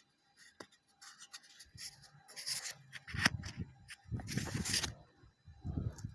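Engine parts being handled and fitted back by hand: a series of short rubbing and scraping noises, with one sharp knock about three seconds in.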